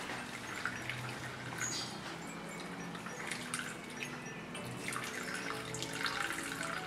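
Dark tobacco-leaf brew trickling and dripping from the lip of an aluminium pot as it is poured slowly through a cloth strainer.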